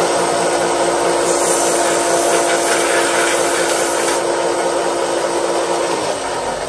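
A small power sanding tool runs steadily, grinding the tip of a knife pin flat. It eases off near the end.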